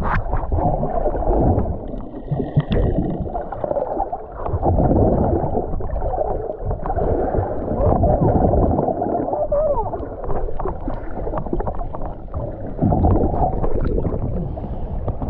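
Muffled sloshing and gurgling of seawater close around the microphone, swelling and falling unevenly, with almost nothing in the upper range.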